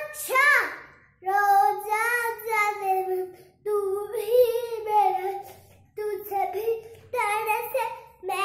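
A young boy singing without accompaniment, in high-pitched phrases of one to two seconds broken by short pauses.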